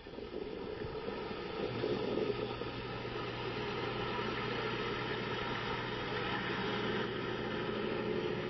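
An engine idling steadily, a low hum that comes in about two seconds in, over a constant rushing background noise.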